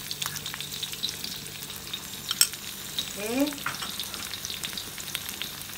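Sliced onion, curry leaves and chillies frying in hot oil in a wok over medium heat, with a steady crackle of small pops around a dollop of chilli paste and soy sauce. A sharp clink about two and a half seconds in.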